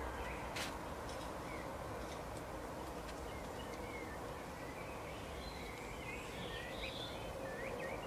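Small songbirds twittering: scattered short chirps that grow busier in the second half, over a steady outdoor background hiss with a faint hum.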